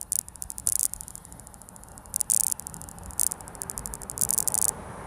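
Samsung Galaxy S25 Ultra camera module making a high-pitched buzzing, crackling noise in irregular bursts, several times a few tenths of a second long, settling into a steadier high hiss near the end. It is the faulty camera noise that comes with the camera's shaky focus.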